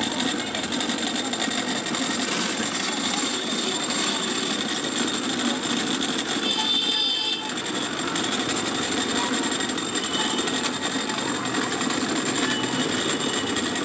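Electric cotton candy machine running, its spinning head making a steady mechanical drone with a thin high whine while floss is spun. A brief high-pitched sound cuts in about six and a half seconds in.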